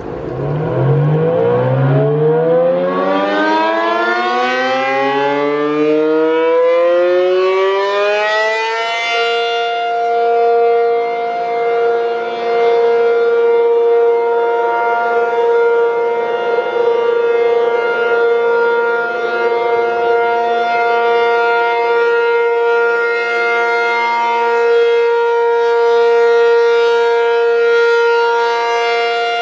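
ACA P-50 outdoor warning siren starting up for a one-minute steady Alert signal: its pitch climbs over about nine seconds, then holds one steady tone. Its loudness swells and dips slightly every eight or nine seconds.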